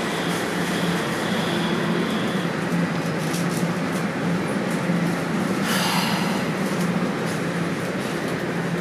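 Steady hum and rumble inside a Toronto subway car during a station stop, with a short clatter about six seconds in.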